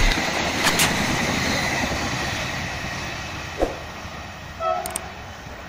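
Passenger train rolling past on the rails, its steady noise fading as the last carriages go by and the train moves away. A few short clicks and brief tones come near the end.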